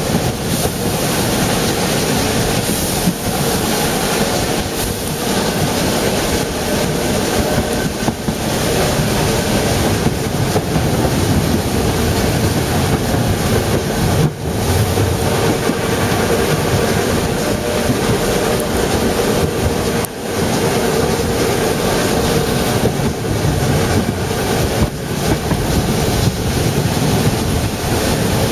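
Narrow-gauge steam train running, heard from an open carriage window: a steady rumble of wheels and carriage, with wind rushing over the microphone.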